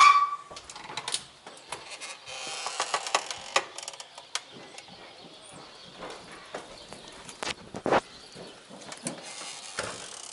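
A door and its overhead door closer being worked, the closer's mounting bolt having come loose so that it hangs down. A sharp metal clank with a short ring comes at the start, then rattling from about two to four seconds in, and scattered clicks and knocks, the loudest about eight seconds in.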